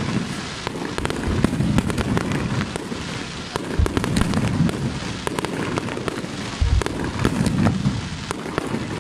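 Aerial fireworks bursting in quick succession: a dense run of sharp bangs and crackling over a continuous low noise, with a couple of heavier booms.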